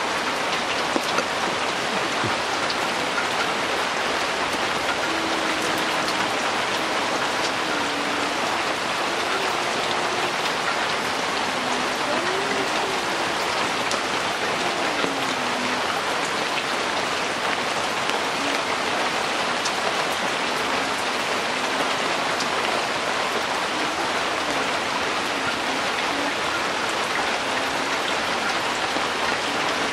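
Steady downpour of rain falling on open ground, an even hiss that holds at one level throughout.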